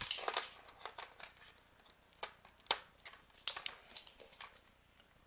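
Hard plastic clicks and taps of LEGO bricks as a trailer is set onto a truck's coupling and the model is handled on a baseplate: a string of irregular short clicks, a few at a time, with pauses between.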